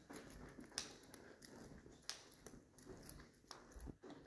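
Near silence: room tone with a few faint clicks and soft low thumps.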